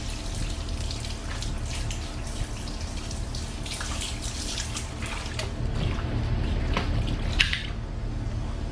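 Water from a hose spraying onto a mountain bike's frame and rear wheel, splashing and dripping onto a wet tiled floor, with a brief louder splash near the end.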